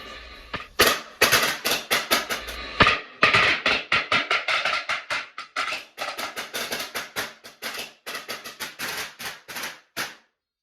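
A string of small firecrackers going off: rapid, irregular bangs, several a second, starting about a second in and slowly getting quieter until they stop near the end.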